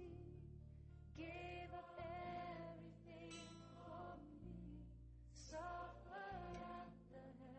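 Quiet gospel worship music: a singer holding long, wavering notes in phrases over low sustained accompaniment.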